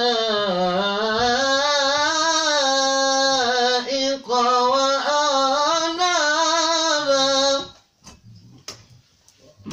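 A man chanting Quran recitation in long, drawn-out melodic phrases whose pitch slowly rises and falls, with a short breath break about four seconds in. He stops near the end.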